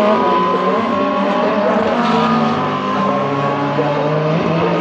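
Racing car engines running at speed on track, several engine notes heard at once in a steady, loud mix.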